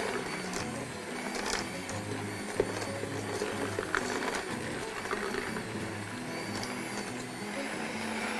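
Handheld electric mixer running with a steady motor hum, its beaters working a thick biscuit dough in a stainless steel bowl, with a few sharp clicks scattered through.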